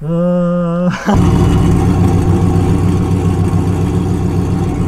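Pontiac GTO V8 being started: the starter whirs for about a second, then the engine catches and settles into a loud, steady idle. It is running with part of its exhaust missing and no mufflers fitted.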